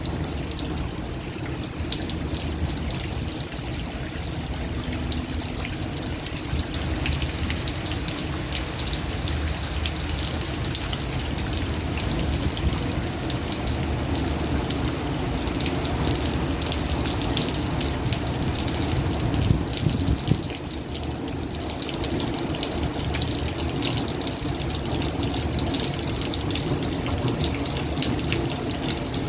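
Heavy downpour: a steady rush of rain with water pouring and splashing close by. About two-thirds through there is a short louder surge with a low rumble, then a brief dip.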